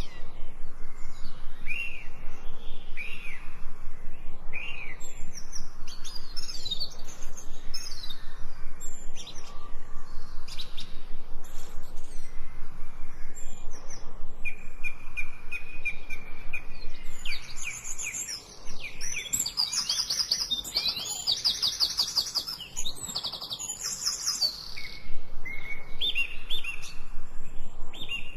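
Songbirds chirping, a series of short rising calls, then a fast high trill through the middle and a quick run of repeated short notes near the end.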